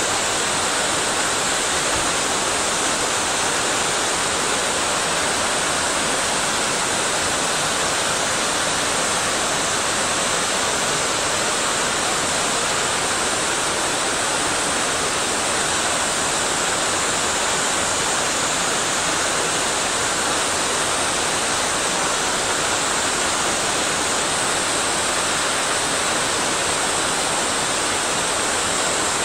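Flowing water of a mountain stream rushing steadily and evenly.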